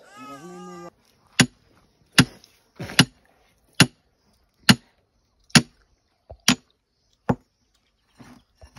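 Short-handled digging tool striking hard, stony ground in a hand-dug well shaft: about eight sharp strikes, roughly one a second. A voice is heard briefly at the very start.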